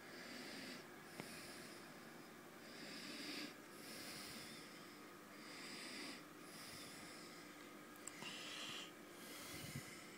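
Slow, soft breathing close to the microphone, in-and-out breaths with a hiss, roughly one breath every two to three seconds. A faint steady hum lies underneath.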